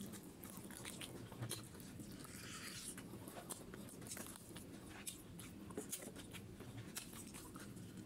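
Close-up eating sounds: biting, chewing and wet mouth smacks while eating spicy duck-feet curry with rice by hand, with many short sharp clicks.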